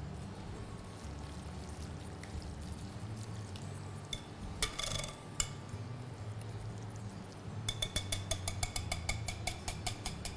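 A metal whisk clinking against a mixing bowl while the chicken is mixed into the yogurt marinade: one clatter about halfway through, then near the end a quick run of ringing taps, about ten a second, over a steady low hum.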